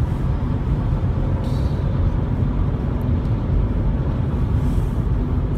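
Steady road and engine noise of a car driving on a motorway, heard inside the cabin: a continuous low rumble with no breaks.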